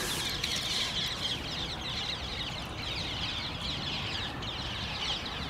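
A flock of birds chattering and calling at once: a dense, unbroken run of short, high chirps, over a low rumble.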